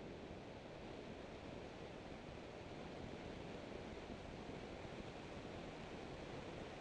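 Steady rushing noise of wind and road at about 100 to 125 mph, with no clear engine note, growing a little louder as the car picks up speed.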